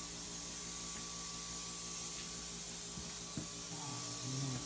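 Refrigerator running: a steady hum with several held tones over an even hiss.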